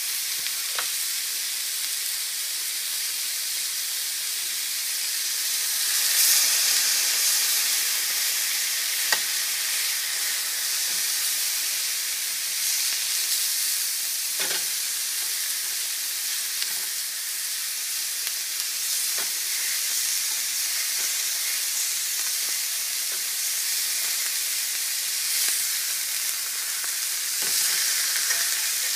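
Pork chops sizzling in a cast-iron grill pan: a steady frying hiss that swells a couple of times, with a few sharp clicks of a metal meat fork against the pan as the chops are turned.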